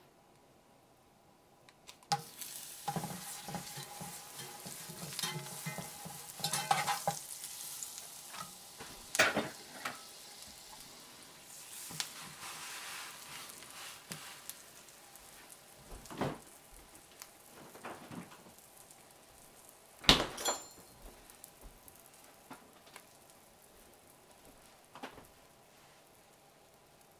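Butter sizzling in a hot cast-iron skillet, starting about two seconds in and slowly fading, with scrapes and sharp knocks of a metal spatula against the pan, the loudest knock about twenty seconds in.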